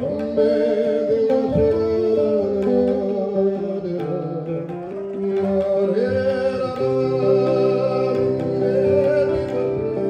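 Live Indian fusion music: a man sings long, wavering held notes into a microphone, accompanied by tabla and electric guitar.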